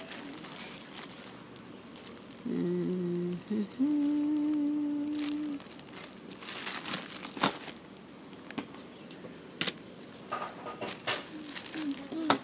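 Plastic bread bag crinkling and crackling as it is handled and turned over. A person hums a few steady notes around the middle.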